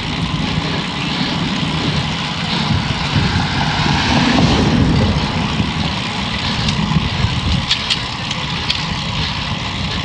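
Wind buffeting the microphone of a road bike in motion, a steady rumbling rush with the tyres rolling on asphalt underneath, and a few sharp clicks in the last few seconds.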